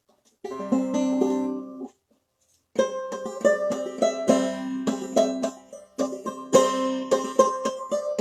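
Open-back banjo played clawhammer style: a chord rung out about half a second in, a short pause, then the tune starts near three seconds in with quick, steady picked notes.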